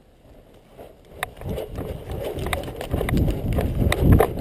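Running footsteps on dirt and gravel from a body-worn camera, with sharp clicks and heavy low thumps about three to four times a second as gear jolts. They start about a second in and grow louder.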